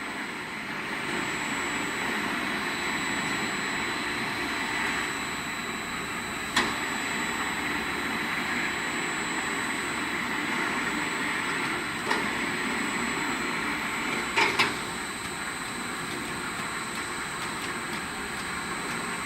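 Heavy-duty welding rotator running, its motor-driven turning rolls rotating while a travelling trolley moves: a steady mechanical noise with a thin high whine over it. Sharp clacks cut through about six and twelve seconds in, then a quick double clack a couple of seconds later.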